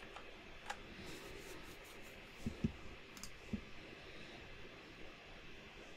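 A handful of short, quiet clicks from working at a computer, scattered over a faint, steady room hiss.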